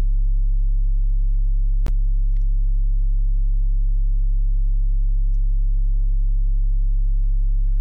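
Loud, steady electrical hum at mains frequency with its overtones, unchanging throughout, with a single sharp click about two seconds in.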